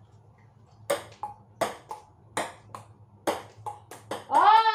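Table tennis rally indoors: a ping-pong ball clicking off paddles and the table, about ten sharp hits at a quick, uneven pace.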